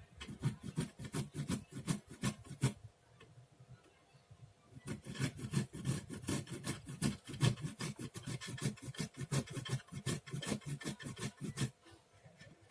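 Peeled fresh ginger root being grated on a hand grater, a rapid back-and-forth scraping of about four strokes a second. The strokes pause for about two seconds roughly three seconds in, then resume and run on until shortly before the end.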